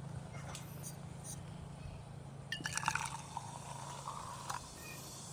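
Liquid being poured briefly about halfway in, preceded by a few light clicks. A low steady hum continues underneath.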